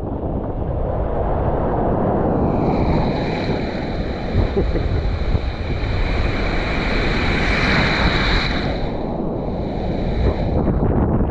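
Breaking surf and foaming whitewater rushing around the microphone, with wind buffeting it. A higher hiss joins about two seconds in and dies away near the end.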